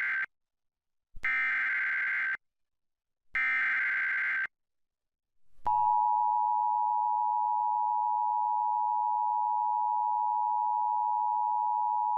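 Emergency Alert System tones: the end of one SAME header data burst and two more raspy data bursts about a second long each, then from about halfway in the steady two-tone EAS attention signal. The alert announces a flash flood warning.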